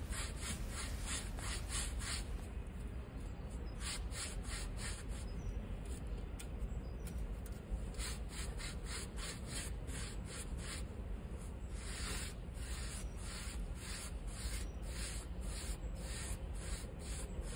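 Flat paintbrush scrubbing liquid rust neutralizer onto a rusty steel plate: quick back-and-forth brush strokes, about three a second, in runs with a couple of short pauses.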